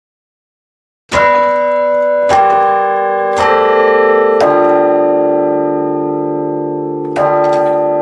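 A 48-bell bronze carillon being played: bells struck one after another about a second apart, starting about a second in, each ringing on and overlapping the next, with a short pause and then further strikes near the end.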